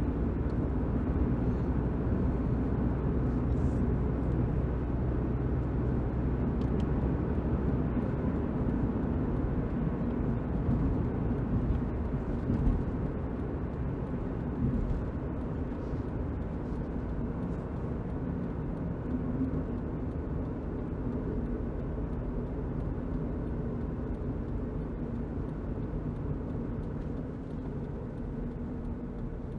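A car driving, heard from inside the cabin: a steady engine and road rumble with most of its weight low down. It eases a little over the second half, and there is one short knock about halfway through.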